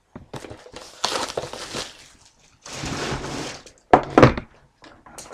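A sealed box of trading cards being opened by hand: rustling and tearing of the wrapping for the first two seconds, a longer rip about three seconds in, then two sharp knocks of cardboard just after four seconds.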